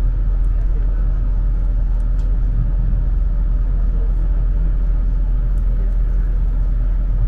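Steady low rumble of a moving passenger train heard from inside the coach: wheels running on the rails, with a few faint ticks.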